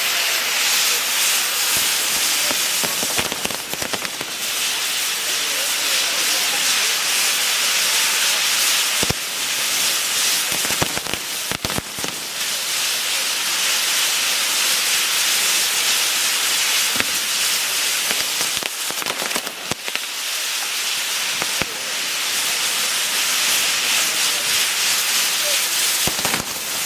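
Fireworks going off: a loud, continuous hiss with many sharp cracks and crackles scattered through it.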